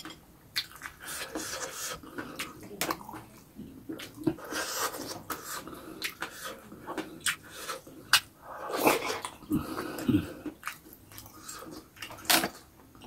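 Close-miked wet eating sounds from a man eating with his hands: chewing, lip smacks and sucking, with many short sharp mouth clicks. The sounds are loudest about a second in, around four to five seconds in, and again near the middle.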